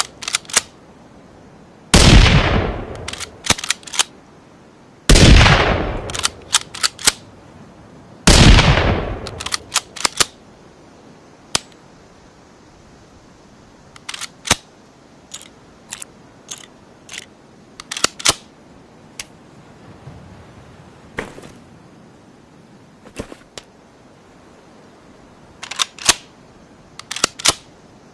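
Rifle gunshot sound effect: three loud shots about three seconds apart, each ringing off briefly and followed by a few sharp metallic clicks. After that comes a long run of scattered, quieter clicks with no more shots.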